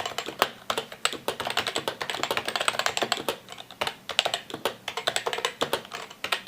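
Typing on a Happy Hacking Keyboard Professional 2 with Topre switches: a fast, continuous run of key presses, many strokes a second.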